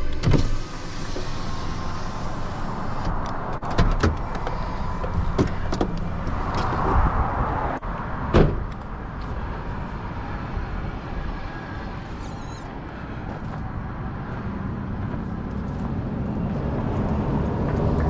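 Steady road traffic noise with a car going by, broken by a few sharp clicks and knocks.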